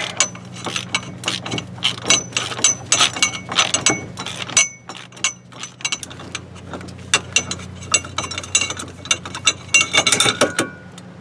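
A 1/2-inch drive ratchet clicking in quick runs as it turns an inner tie rod tool, unscrewing the inner tie rod from the steering rack, with metallic clinks and a short pause about halfway. A steady low hum sits underneath.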